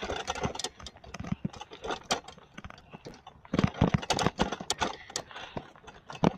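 A bicycle and the camera fixed to it rattling over bumps as it rides: irregular clattering knocks and jangles, with a loud cluster of knocks a little past the middle.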